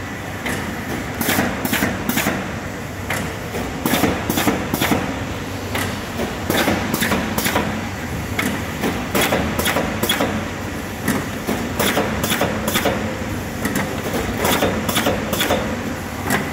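Automatic cardboard partition assembly machine running: a steady mechanical hum under a rapid, uneven series of sharp metallic clacks from its moving assembly mechanism.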